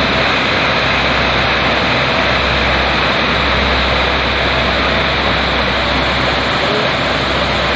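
Large waterfall: a steady, loud rush of falling water.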